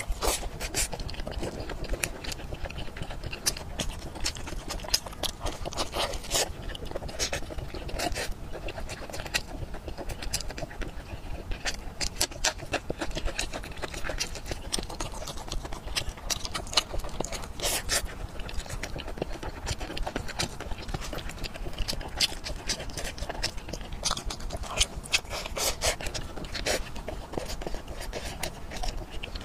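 Close-miked wet chewing, biting and lip-smacking on fatty braised pork, with many irregular sticky clicks from the mouth.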